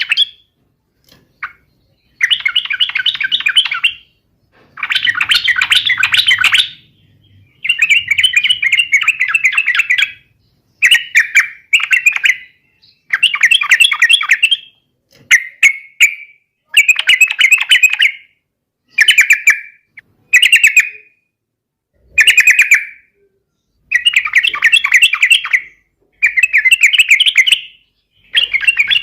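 Yellow-vented bulbul (trucukan) singing a loud, fast chattering 'gacor' song, used as a lure to provoke other trucukan. It sings in repeated bubbly phrases of one to two seconds, with short pauses between them.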